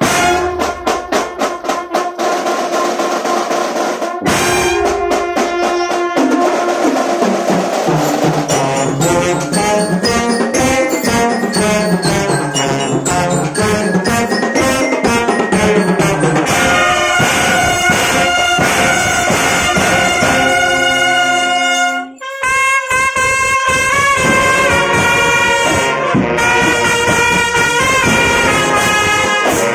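Marching drum band playing: trumpets and other brass carry a melody over snare and marching drums. It opens with quick drum strokes, and the band stops for a moment about two-thirds of the way through before the brass comes back in.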